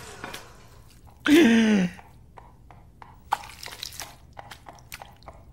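A short vocal sound about a second in that dips and then falls in pitch, followed by scattered crunchy clicks of someone munching a snack.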